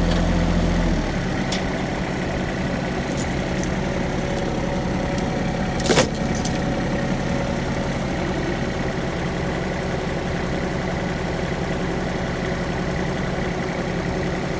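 A vehicle engine running steadily, dropping back to a quieter idle about a second in. A single sharp knock sounds about six seconds in.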